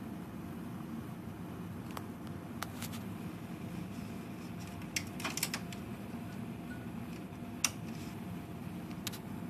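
Coke Zero fizzing in an opened aluminium can: scattered tiny crackling pops of bubbles bursting, a short cluster of them about five seconds in, over a steady low hum.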